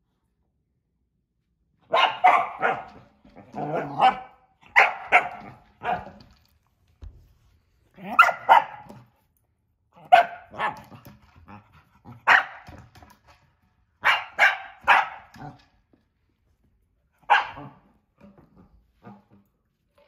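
A dog barking, starting about two seconds in, in repeated bursts of two to four quick barks with short pauses between, while it works at a pellet-filled plastic bottle toy.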